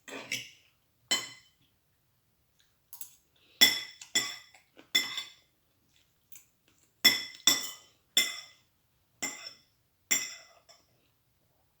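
Dishes being handled and set down, about a dozen sharp clinks of crockery and cutlery at irregular intervals, each ringing briefly.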